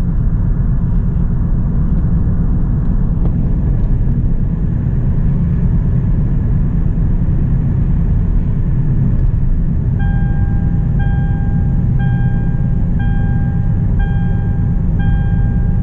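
Steady low engine and road rumble of a Hyundai Elantra heard from inside the cabin while driving. About two-thirds of the way in, a dashboard warning chime starts beeping about once a second.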